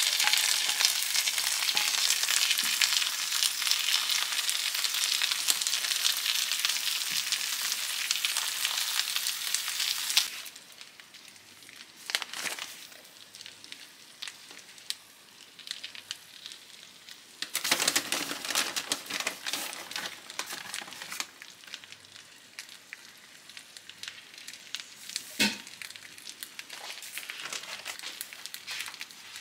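Minced meat and vegetables sizzling hard in a frying pan as they are stirred with a wooden spatula. About ten seconds in, the sizzle drops suddenly to a quieter hiss. Partway through there are a few seconds of rustling as grated cheese is scattered over, and near the end there is a single sharp knock.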